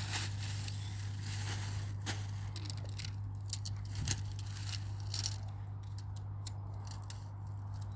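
Tent fabric and packaging rustling and crinkling as they are unpacked and handled, with scattered sharp crackles and clicks that are busier in the first half. A steady low hum runs underneath.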